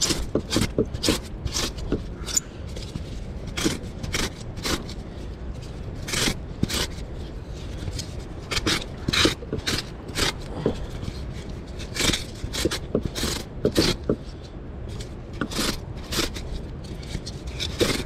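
Block of thermocol (polystyrene foam) being scraped and gouged to cut a notch for the fishing line: irregular short scratchy strokes, some in quick runs.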